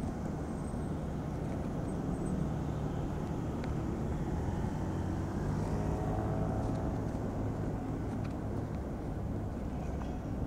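City street ambience: a steady low rumble of road traffic, with a car passing close by near the middle.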